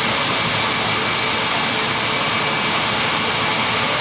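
Bombardier CS300's Pratt & Whitney PW1500G geared turbofans running at low taxi power, a steady rushing hiss with a faint, steady high whine.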